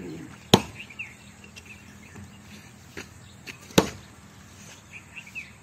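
Sharp knocks of wood: two loud ones about three seconds apart, with a few lighter knocks between, as wooden boards are handled and set down.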